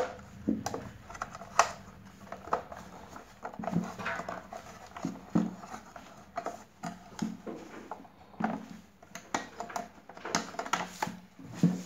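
Removable grill plate being seated and locked into a sandwich maker's housing: irregular clicks, taps and light knocks of the plate against the body, several a second.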